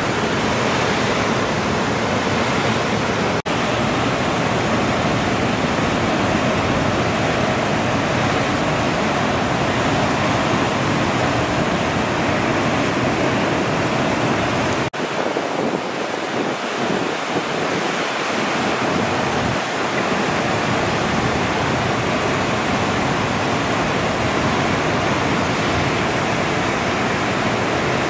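Ocean surf breaking, a steady wash of noise that cuts out for an instant twice.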